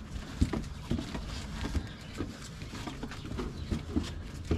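Ears of corn being tossed one after another into the oven, landing with irregular dull knocks.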